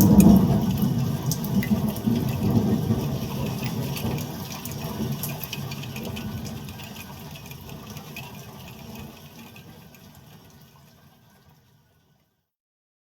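A roll of thunder, loudest at the start and rumbling away, with some crackle, until it dies out about eleven seconds in.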